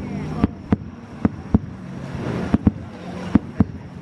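Aerial fireworks shells bursting: a string of sharp bangs, about eight in four seconds, some in close pairs, over a steady background hiss.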